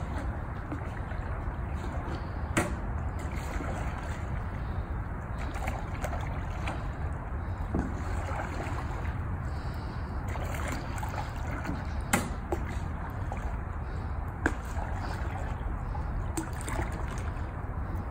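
A paddle dipping and pulling through water as a small flat-bottomed boat is paddled, with water trickling off the blade. A few sharp knocks stand out over it.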